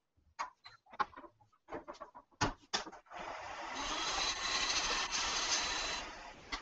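A few light clicks and knocks, then about three seconds in an eighth-inch parting tool bites into the spinning cocobolo duck-call barrel on the lathe, a steady cutting hiss for about three seconds before it fades. It is a small sizing cut for fitting a band, which went a little too deep.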